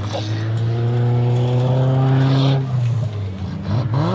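Stock-car engines at full throttle on a dirt track. One engine climbs steadily in pitch for about two and a half seconds, then drops away, and near the end another engine revs up sharply.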